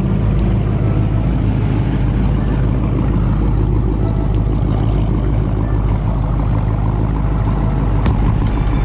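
Car engine idling steadily through a loud exhaust, a deep, even rumble, with a few faint ticks near the end.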